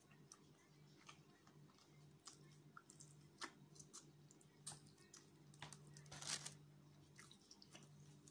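A person biting and chewing a slice of Hawaiian pizza: quiet, scattered mouth clicks and smacks, with a louder crunchy chew about six seconds in. A low steady hum runs underneath.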